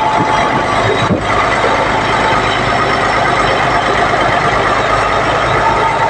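Heavy diesel engine running steadily and loudly up close, with a thin whine that shows briefly at the start and again near the end.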